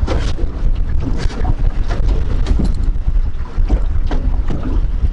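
Wind buffeting the microphone with a heavy, steady low rumble, aboard a small fishing boat on open water, with scattered short knocks.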